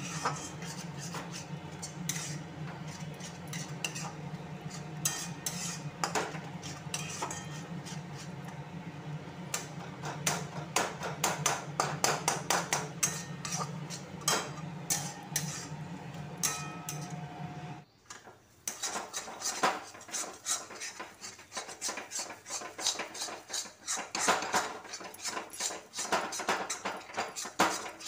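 Metal spatula scraping and clacking against a metal kadai as thick masala paste with mashed potato is stirred and fried, with many irregular scrapes and knocks. A steady low hum runs underneath and cuts off suddenly about two-thirds of the way through.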